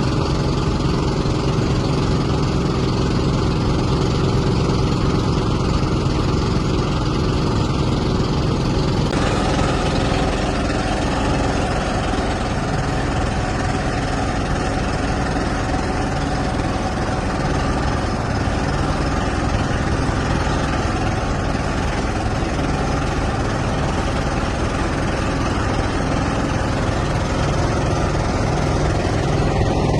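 An engine running steadily and continuously, its sound shifting in character about nine seconds in.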